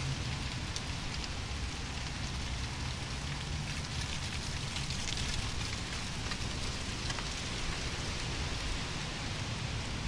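Wind blowing through trees with a steady rustle of leaves.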